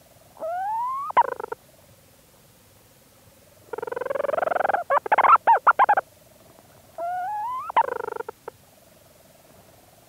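Leach's storm petrel calling close up from inside its burrow: three bouts, each a rising, wavering note or a long buzzing note that breaks into a quick run of chattering notes. A faint steady hum runs between the bouts.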